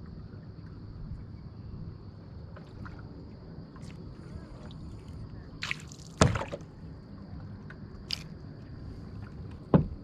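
Sharp knocks against a kayak with light water sloshing, four in all, the loudest about six seconds in, over a steady high insect drone.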